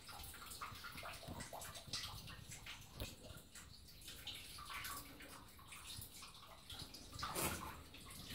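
Water trickling and dripping in an underground mine tunnel, faint and uneven, with a brief louder noise about seven seconds in.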